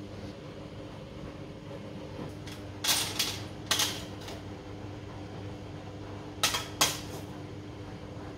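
A metal spoon clinking against a stainless steel plate and cockle shells as cooked cockles are spooned out: a cluster of sharp clinks about three seconds in and two more past halfway. A steady low hum runs underneath.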